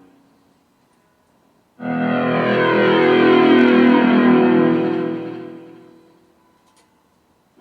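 An electronic sound effect: a sustained chord-like tone with a sweeping, shimmering effect. It starts suddenly about two seconds in and fades away over several seconds. A similar tone starts again right at the end.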